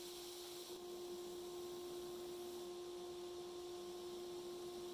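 Belt grinder running steadily: an even motor hum with one held tone and a hiss above it, with no distinct grinding bursts.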